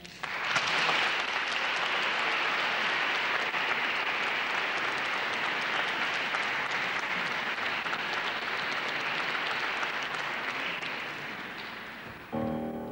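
Concert audience applauding steadily in a large hall after the music stops. The applause dies away, and instrumental music starts again near the end.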